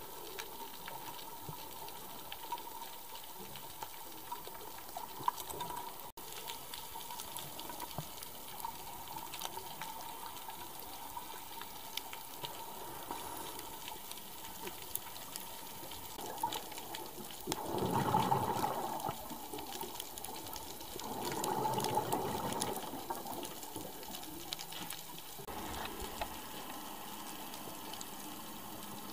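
Underwater sound of a scuba dive: a steady hiss with scattered crackling clicks. Twice, a few seconds apart, there is a swell of rushing bubbles about two seconds long from a diver's regulator exhaust.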